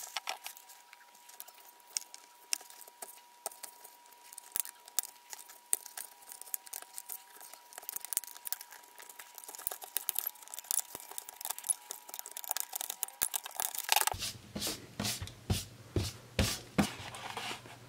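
Knife blade scraping and shaving away hard plastic of a Samsung Gear VR headset's housing, a rapid string of scratchy scrapes and clicks that gets louder and busier over the last few seconds.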